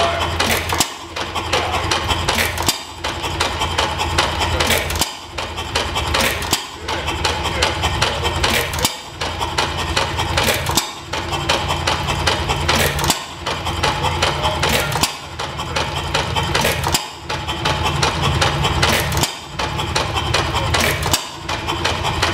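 International Harvester Famous 1-HP hit-and-miss stationary engine running, firing with a sharp bang about every two seconds and coasting on its spinning flywheels between firings, over a steady low hum.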